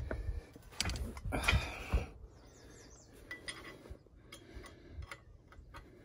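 Light metallic clinks and taps as a steel bushing and hand tools are worked in a loader coupler's pin bore, a few sharper ones in the first two seconds, then fainter scattered ticks. A low rumble sits under the first two seconds.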